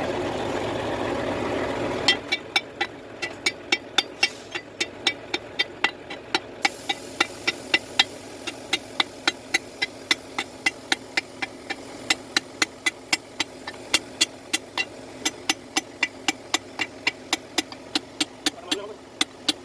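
Repeated hammer blows, about three a second, starting after a steady running noise stops about two seconds in. This is typical of hammering a part during a truck steering box repair.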